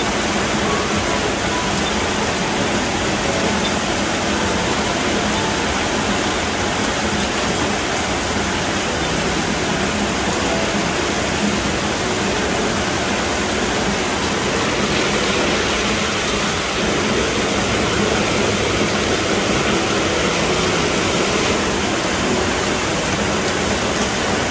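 Heavy rain pouring steadily, a loud, even hiss of water falling on foliage and ground.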